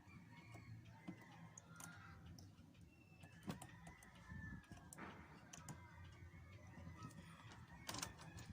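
Near silence with faint, scattered clicks of small hand tools working on a radio circuit board while a transistor is replaced.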